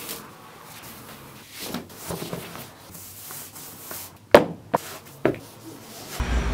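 Cotton clothing rustling as a T-shirt is pulled on, then three sharp taps about half a second apart as feet step down on a carpeted floor.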